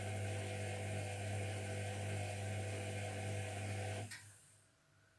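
Zerowatt/Hoover Performa 1000 HZ1042 washing machine running mid-wash with a steady electric hum, which cuts off about four seconds in.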